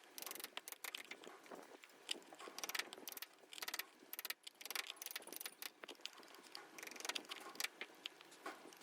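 Hand carving in wood with chisels: many short, sharp, irregular taps and scrapes of the metal blade cutting into wood.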